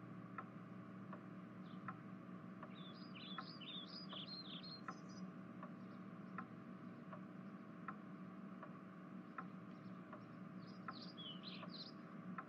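Faint room tone with a steady low hum and light ticks at an even pace, with short flurries of bird chirps a few seconds in and again near the end.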